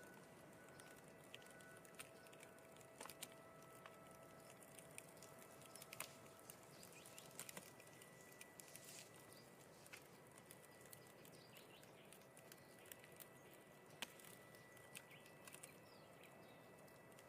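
Near silence: faint background hiss with a few faint steady tones and scattered faint clicks.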